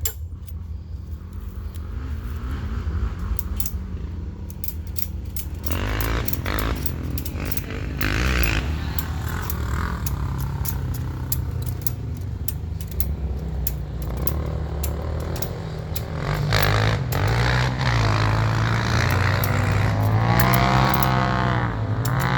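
Vehicle engine running with a steady low rumble and scattered clicks, then revving up and down in the last several seconds.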